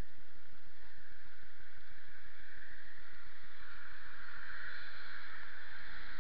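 Steady wet hiss of a rainy street, swelling about four seconds in, with a choppy low rumble of wind buffeting a small action camera's microphone.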